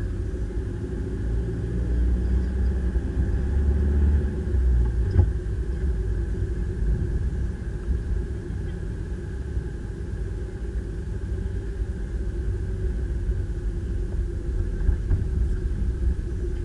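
Car cabin noise while driving through town: a steady low rumble of engine and tyres on the road, a little louder for a few seconds early in the stretch.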